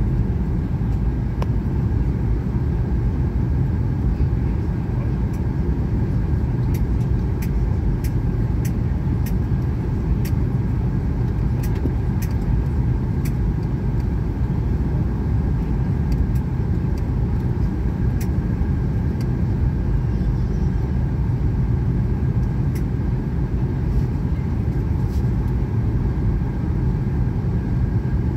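Steady cabin noise of a Boeing jet airliner on descent: the low rush of its turbofan engines and the airflow over the fuselage, with a faint steady whine above it.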